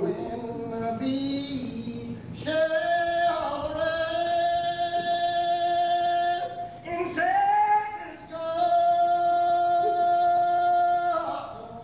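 Unaccompanied congregational hymn singing in the slow Old Regular Baptist style, men's and women's voices together. They hold long notes for several seconds each and slide between them, with a short dip near the middle.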